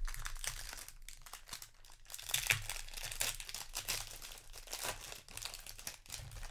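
Foil wrapper of a Magic: The Gathering booster pack being torn open and crinkled by hand, then the cards slid out of the rustling foil. Loudest about two and a half seconds in.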